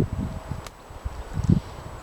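Spade digging into compost and soil: irregular dull thuds and scrapes, the loudest about a second and a half in, with a sharp click just before it.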